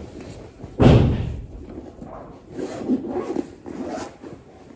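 A door slams once with a loud bang about a second in, followed by quieter, muffled sounds.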